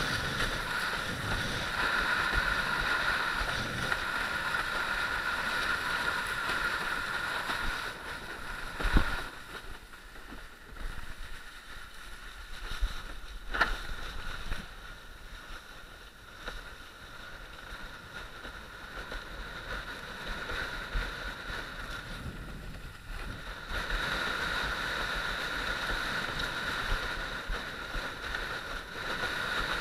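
Water rushing and splashing against a windsurf board sailing across choppy water, with a steady hiss. It grows quieter through the middle, where two sharp knocks stand out, then picks up again near the end.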